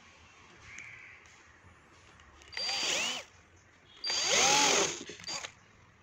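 Cordless drill run in two short bursts, spinning up and winding down each time, boring a small pilot hole for the motor's mounting screws.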